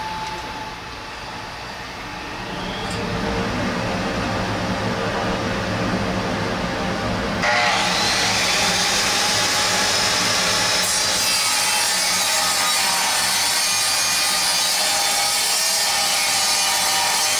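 Circular saw on a vertical panel saw running, growing louder about three seconds in. About seven and a half seconds in, the blade bites into a 1-inch clear acrylic sheet and cuts steadily, a louder, brighter cutting noise over the motor.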